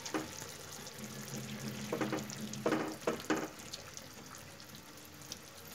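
Plastic spatula scraping and stirring in a non-stick pan of simmering mustard gravy as hilsa fish steaks are turned over, with a soft frying sizzle underneath. A few short scrapes come a couple of seconds in and again around three seconds.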